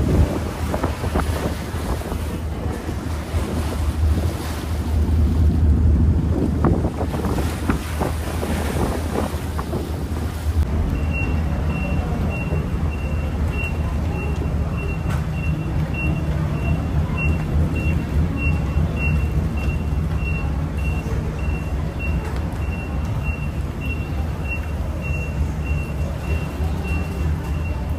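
Wind buffeting the microphone over a low engine-like rumble. About ten seconds in the sound changes abruptly to a steady low hum with short, high electronic beeps repeating evenly, a little under twice a second.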